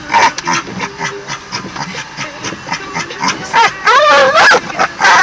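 A dog panting fast, about four to five breaths a second, then breaking into a loud wavering whine about three and a half seconds in, with another loud cry at the end. The dog is agitated by the moving windshield wipers.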